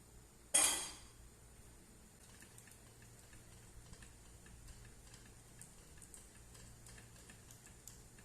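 A single sharp clink of kitchen dishware or utensils about half a second in, ringing briefly, followed by faint scattered light clicks.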